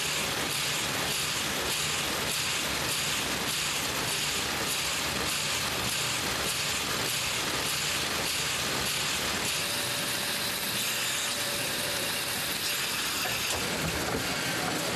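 Banknote printing press running, a steady machine noise.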